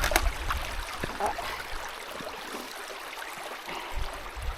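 Small stream running, with a few knocks and bumps as it is stepped across.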